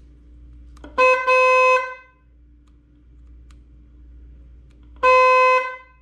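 Small aftermarket electric 'train horn' on a Yamaha WR250R motorcycle sounding in honks of one steady pitch: a quick tap running into a blast of about a second, starting about a second in, then a second blast of just over half a second near the end. Pretty loud, though it doesn't sound like a train.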